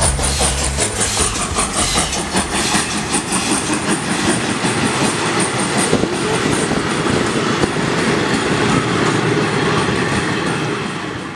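FS Class 640 steam locomotive and its train of vintage passenger carriages rolling past close by, the wheels clacking over the rail joints. The sound fades out near the end.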